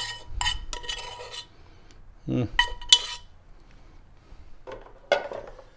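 A metal spoon clinking and scraping against a cooking pot as thick béchamel sauce is spooned out of it, with short ringing clinks in the first second or so and again about three seconds in.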